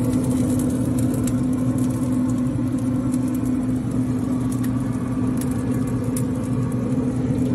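Steady motor hum from a running Pit Boss Pro Series 1600 wood pellet grill, most likely its fan. The pitch stays constant throughout.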